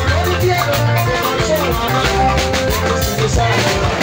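Loud dance music with a steady drum beat and a pulsing bass line, played over a sound system.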